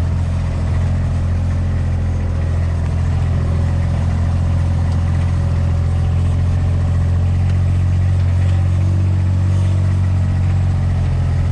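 A vehicle's engine running steadily at an even pitch and speed.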